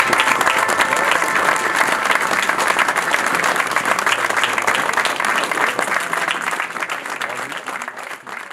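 A crowd applauding: dense clapping that fades away near the end.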